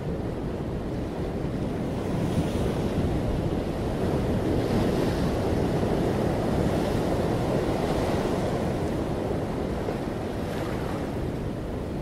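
Ocean surf and wind: a steady rush of waves that swells up through the middle and eases off near the end.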